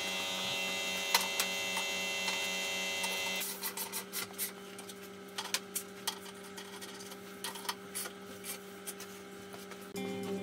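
Steady mechanical hum made of several held tones; the higher tones stop about three and a half seconds in, leaving a lower hum with scattered light clicks and taps over it.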